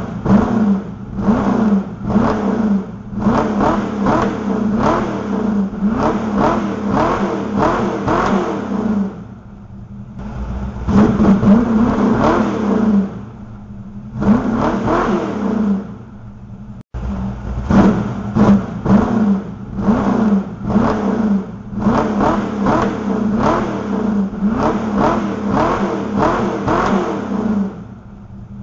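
Kit car engine revved in quick repeated throttle blips through its newly welded exhaust, each rev rising and falling in pitch. It drops back to idle briefly a few times between runs of blips.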